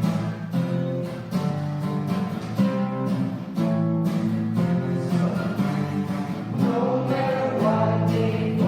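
Song accompaniment: strummed acoustic guitar playing chords in a steady rhythm, with a singing voice coming in near the end.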